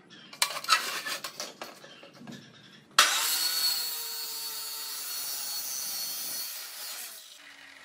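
Light clicks and knocks as a steel tube is set in the vise, then about three seconds in a Maktec abrasive chop saw starts abruptly and grinds through square steel tubing, the grinding dropping away near the end.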